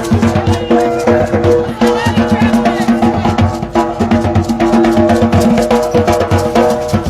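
Music with a busy drum and percussion beat over held notes.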